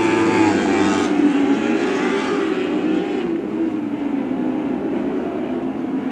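Lightning sprint cars racing, their engines running at speed in a steady drone whose pitch wavers up and down as the cars go round. The sound is brighter for the first three seconds and duller after.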